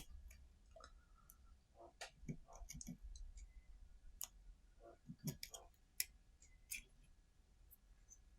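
Faint, scattered clicks and small scrapes of an X-Acto knife cutting around a sticker on a tripod mount, with a few light knocks from handling the part.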